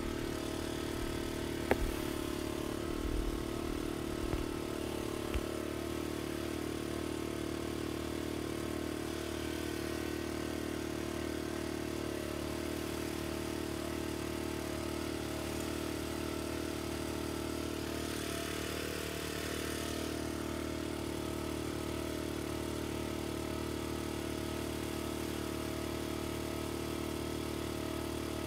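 Engine of a ride-on motorized concrete buggy (Georgia buggy) running steadily at an even pitch. A few short clunks come in the first several seconds.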